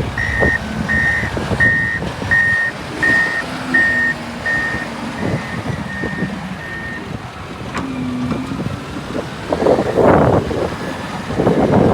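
Backup alarm on a work vehicle beeping steadily, a bit more than one beep a second, fading out about seven seconds in, over the running engine, whose noise swells near the end.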